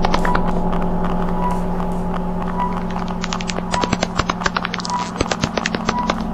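Steady low hum overlaid with fast, irregular crackling clicks that grow denser in the second half, and short beeps about once a second.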